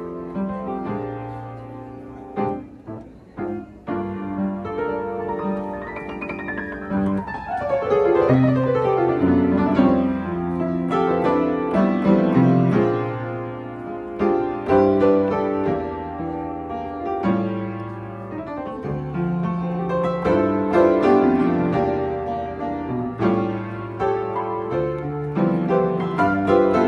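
Solo piano playing chords and melody, softer at first, with a quick downward run of notes about six to eight seconds in, then fuller and louder.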